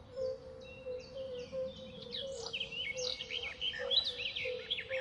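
Birds chirping and calling, many short quick chirps overlapping, growing busier and louder about two seconds in, over a steady low hum.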